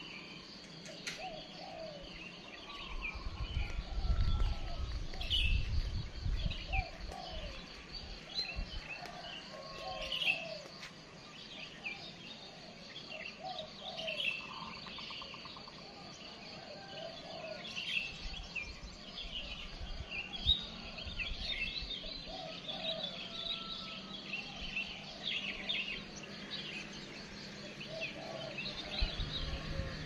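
Many small birds chirping and twittering together: quick high chirps over lower, repeated calls. A low rumble comes in for a few seconds near the start.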